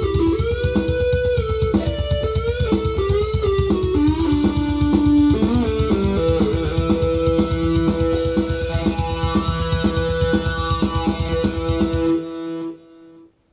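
Korg Krome synthesizer playing a lead line that bends up and down in pitch over a fast, driving rhythmic backing. It stops about twelve seconds in, leaving one held note ringing out briefly before it falls quiet.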